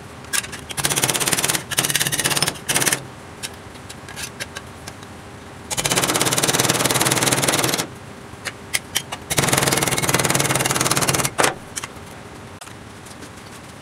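Hammer rapidly striking thin sheet steel against a steel anvil to bend and form it. The blows come in fast runs: two short runs near the start, then two longer runs of about two seconds each in the middle and later, with a few separate single taps between them.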